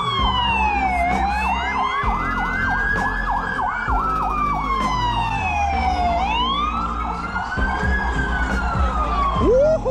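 Police sirens: one wails slowly, rising and falling every two to three seconds, while a second yelps quickly over it, with a low rumble underneath. Near the end a louder, lower whoop sweeps upward.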